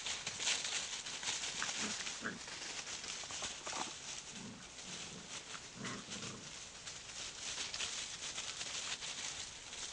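Puppies scampering and play-wrestling through dry fallen leaves: continuous crackling leaf rustle, with a few short low vocal sounds from the puppies between about two and six seconds in.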